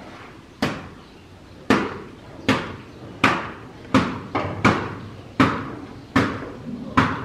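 Hard-soled footsteps on a concrete floor, about one step every three-quarters of a second, each step sharp and echoing in a large hall.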